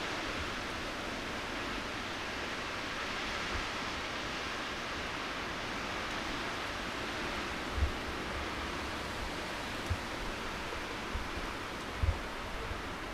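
Steady rushing of strong wind in a snowstorm. A few short low thumps come in the second half.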